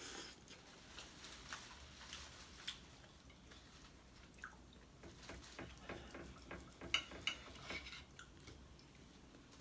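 Faint, wet chewing and mouth clicks as a man eats sauce-glazed barbecue rib meat: scattered soft clicks, with a few louder ones about seven seconds in.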